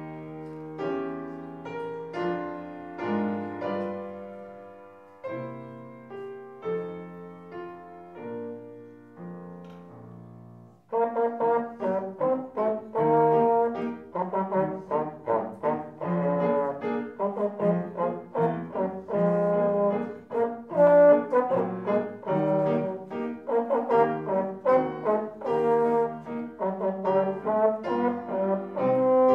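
Trombone solo with piano accompaniment. The piano plays alone for about the first ten seconds, with notes that strike and die away. Then the trombone comes in loudly with quick, short notes over the piano.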